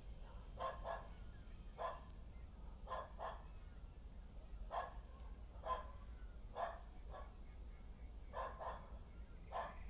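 A dog barking: about eleven short barks over ten seconds, some single and some in quick pairs.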